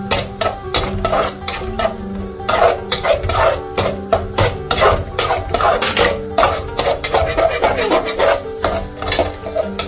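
A spatula stirring and scraping a yogurt-and-spice masala in a cooking pan, many quick irregular strokes, as the masala is fried down (bhuna). Background music with held notes plays underneath.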